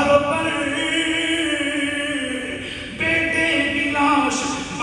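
A man's voice chanting an elegiac Urdu verse in a slow melody, holding long drawn-out notes; the phrase fades and breaks off about three seconds in, and a new line starts at once.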